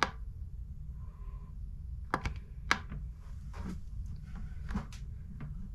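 Plastic keypad buttons on an Eton Zoneguard weather-alert radio being pressed: about seven short, separate clicks, two in quick succession about two seconds in.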